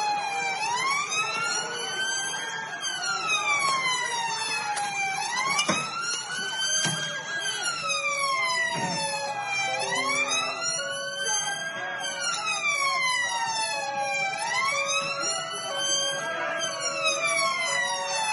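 Police van siren on a slow wail, rising and falling about every four and a half seconds. From about eight seconds in a second siren joins, alternating between two lower notes, and a single sharp crack sounds about six seconds in.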